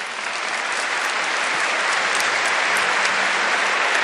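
A large audience applauding, the clapping swelling in the first moment and then holding steady.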